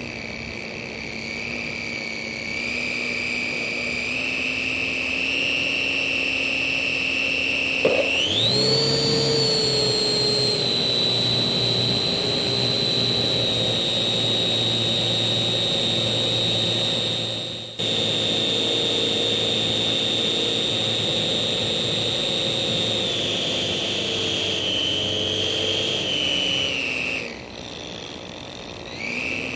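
Slow Stick RC model plane's electric motor and propeller whining in flight. The pitch jumps up sharply about eight seconds in as the throttle opens and holds steady. It drops back as the throttle is eased, with a short cut-out in the middle, and rises again near the end.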